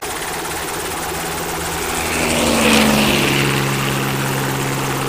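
Military helicopter hovering close: a steady rush of rotor and turbine noise that swells to its loudest a little under three seconds in, with a low engine hum coming in around the middle.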